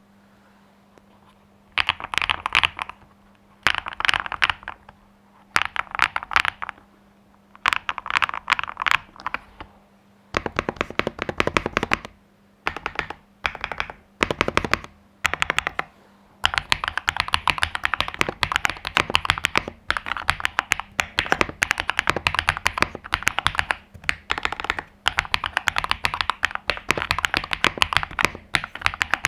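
Stock Cidoo QK61 V2 mechanical keyboard being typed on, keys clacking in dense clicks. The typing starts about two seconds in as short bursts with brief pauses, then runs on almost without a break from about halfway.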